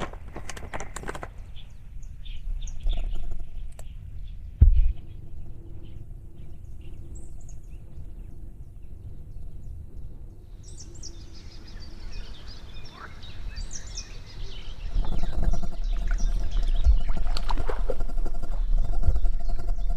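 Small birds chirping in short high calls, most often in the second half, over a low rumble of wind and handling on the microphone. A single sharp knock comes just before five seconds in, and from about fifteen seconds in the rumble and rustling grow louder.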